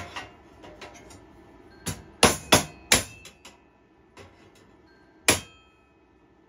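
A hammer strikes a brass drift held on a rivet in a steel frame, knocking the proud rivet head down flush. Three quick blows come a little after two seconds in and one more about three seconds later, each with a short metallic ring.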